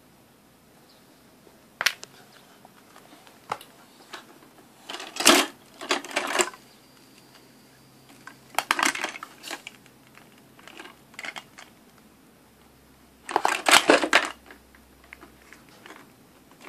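Small plastic toys clattering against each other, a clear plastic jar and a wooden floor, in scattered short bursts of rattling and single clicks, loudest about five seconds in and again near fourteen seconds.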